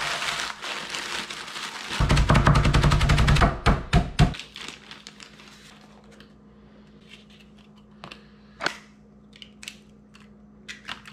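A plastic zip-top bag of saltine crackers crinkling and crunching as the crackers are crushed by hand. About two seconds in comes the loudest part, a rapid run of knocks lasting about a second and a half, then a few single knocks. Later there are light clicks and taps, with eggs being cracked near the end.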